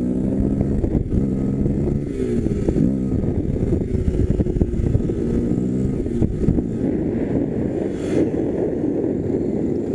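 Motorcycle engine running under way, its pitch rising and falling several times as the rider works the throttle and shifts gears, over wind rumble on the microphone.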